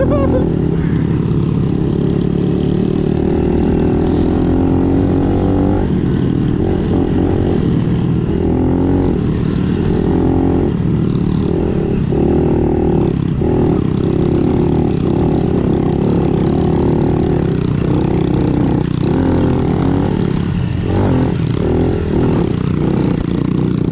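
Honda CRF110 pit bike's small single-cylinder four-stroke engine running under throttle while riding, its pitch climbing and dipping several times as the throttle opens and eases.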